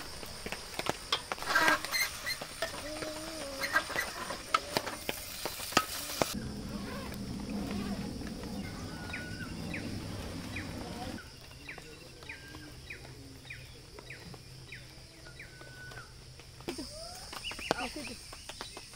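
Stir-frying in a wok: a steady sizzle with the scrape and clack of a wooden spatula. After a cut, birds chirp in short repeated calls, and near the end there are small clinks of spoons on plates.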